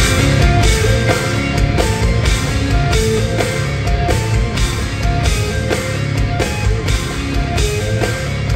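Instrumental progressive metal played live and loud by a band: electric guitar over a drum kit, with regular drum and cymbal hits.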